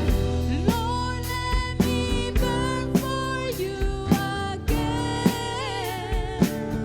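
Worship music: a singer's voice, wavering on held notes, over a band with drums keeping a steady beat of roughly one hit every half-second or so, with guitar.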